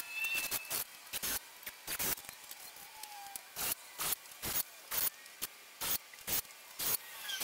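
Cordless drill/driver in short repeated bursts, driving screws through metal strong-ties into a 2x4 wooden deck frame. The bursts are short and sharp, about one or two a second at uneven spacing.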